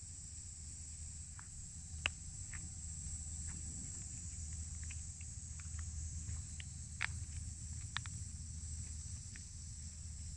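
Steady high-pitched insect chorus over a low steady rumble, with scattered short taps and ticks, the loudest about two seconds in and again around seven and eight seconds.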